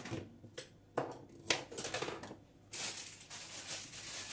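Carrots being peeled by hand on a kitchen counter: a few sharp knocks, then from just under three seconds in a quick run of rasping peeling strokes.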